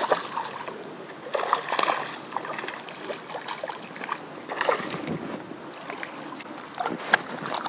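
A hooked small bass splashing and thrashing at the water's surface as it is reeled in, in several irregular splashes.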